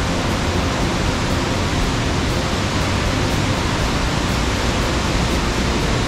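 Kegon Falls, a 97-metre plunge waterfall, giving a steady, unbroken rush of falling water. On this day it runs at a low flow of about 2 tonnes a second.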